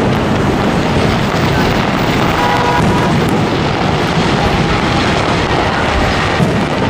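Fireworks show bursting overhead: many shells going off close together, so their booms merge into a steady, loud rumble with no clear gaps between them.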